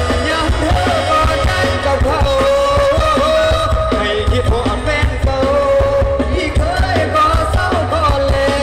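Live Thai stage-show band playing loudly through a PA: a singer's held, wavering melody over a steady electric bass and drum beat.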